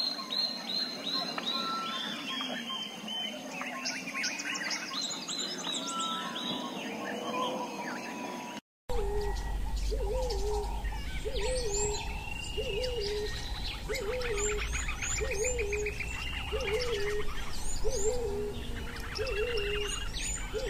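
Wild birdsong: many birds chirping and trilling. After a cut about nine seconds in, a low hooting bird call repeats about once a second under the continuing chirps.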